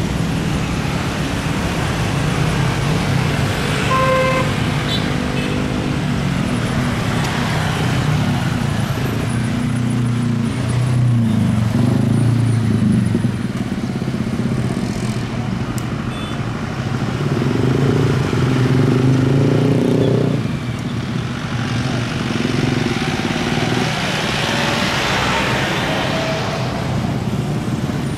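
Road traffic passing close by, mostly motorcycle and car engines, with a short horn toot about four seconds in. Underneath is the rumble of an Airbus A320 airliner taking off; its roar swells near the end as the jet climbs away.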